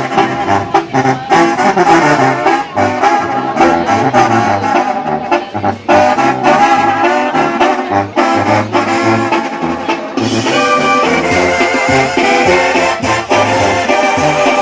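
Brass-led music: trombone and trumpet play a melody over a stepping bass line and steady percussion, and the sound gets brighter about ten seconds in.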